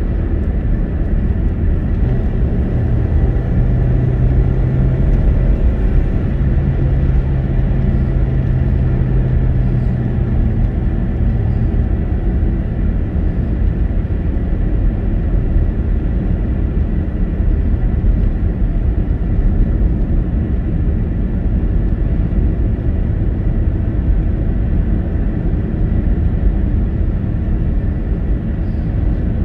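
Steady tyre and engine noise of a car driving on a wet tarmac road, heard from inside the cabin, with a low steady hum that holds for about ten seconds near the start.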